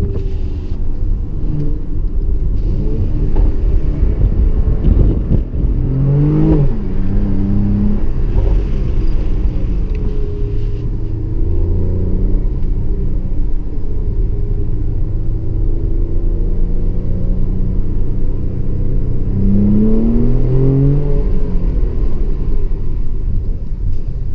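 Mercedes-AMG GLE 43's twin-turbo V6 driving under changing load, with the revs climbing sharply about six seconds in and again near the end, between steadier stretches.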